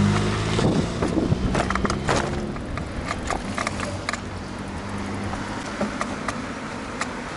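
Steady rushing noise with irregular clicks and rattles, bunched in the first couple of seconds, as from a moving bicycle. A motor vehicle's low engine hum fades out in the first half-second.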